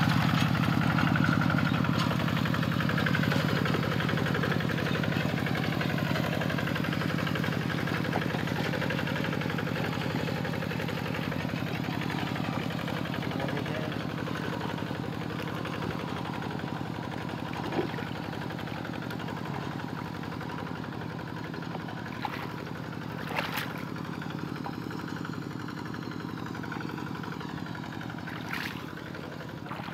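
Two-wheel hand tractor's single-cylinder diesel engine running steadily under load while plowing a flooded rice paddy, growing gradually fainter as the tractor moves away. A few faint clicks come in the second half.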